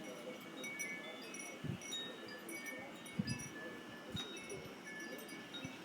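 Wind chimes tinkling in the gusting wind: scattered short, clear ringing notes at a handful of pitches, coming irregularly.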